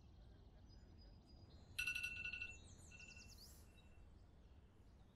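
Birds chirping faintly, and about two seconds in a short burst of a phone's electronic ringtone, a cluster of steady beeping tones lasting about half a second.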